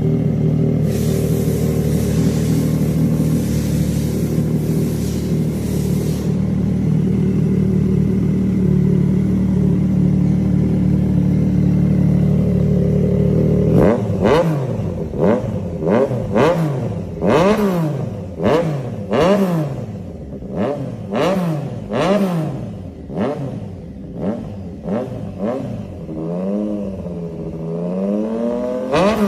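Triumph Daytona sport motorcycle with an aftermarket sport exhaust, running steadily for about fourteen seconds. It is then revved in a string of about a dozen quick throttle blips, each rising and falling in pitch. Near the end come a couple of slower revs.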